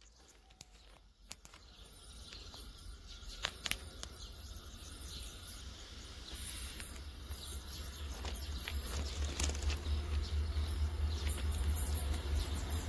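Low rumble of an approaching electric locomotive, growing steadily louder, with insects chirping high and faint scattered clicks.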